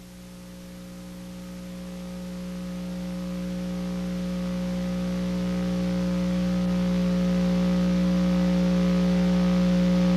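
Steady electrical hum: a low buzz made of several unchanging tones over faint tape hiss, growing slowly and evenly louder.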